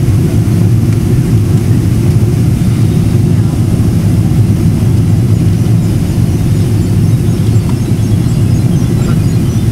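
Jet airliner cabin noise in flight: a deep, steady rumble of engines and rushing air heard from inside the cabin.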